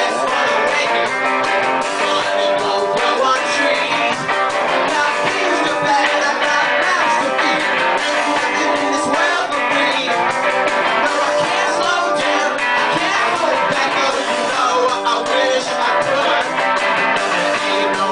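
Rock band playing live: a singer's voice into a microphone over strummed guitars.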